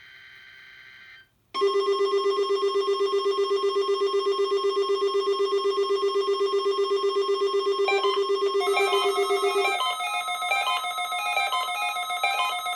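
Weather radio receivers sounding their alarms, set off by the NOAA Weather Radio weekly test signal. After brief faint electronic tones, a loud rapidly pulsing buzz-like alarm starts about a second and a half in. Near eight seconds a second receiver's stepping beep alarm joins, and it carries on after the buzz stops at about ten seconds.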